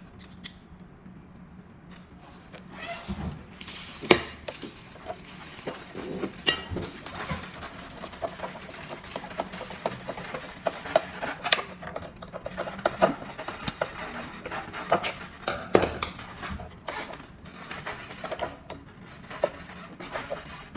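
A screwdriver and small metal parts working on a ceiling fan's housing: scattered clicks, knocks and scrapes as screws are worked in. The sounds start about two seconds in, with the sharpest knock about four seconds in.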